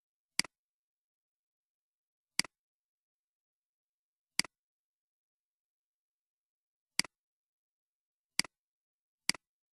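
Computer mouse button clicks: six short, sharp clicks at uneven intervals, each a quick press followed by a softer release, with silence between.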